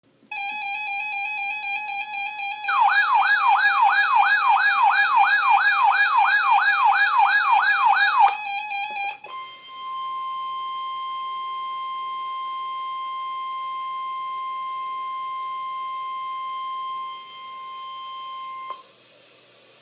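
Electronic alert tones. A steady buzzy beep has a fast warbling siren-like sweep laid over it for about five seconds, rising and falling about three times a second. After a brief break comes the NOAA Weather Radio 1050 Hz warning alarm tone, a single steady tone held for about nine seconds, which signals that a warning message follows.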